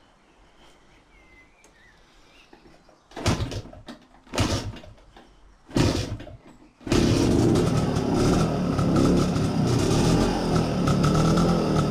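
1968 BSA Bantam's 175 cc two-stroke single being started on a freshly refitted Amal Concentric carburettor: three short bursts as it fires briefly and dies, then about seven seconds in it catches and keeps running steadily.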